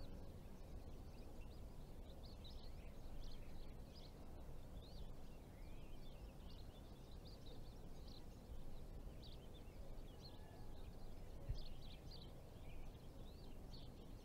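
Faint outdoor ambience: small birds chirping in quick short calls over a low steady rumble, with one short knock about eleven and a half seconds in.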